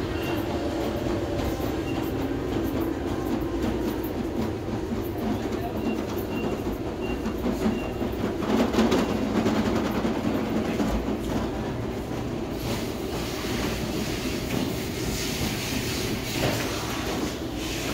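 Steady rumbling background din of a large, busy shop, with rattling and clatter swelling about halfway through and again near the end.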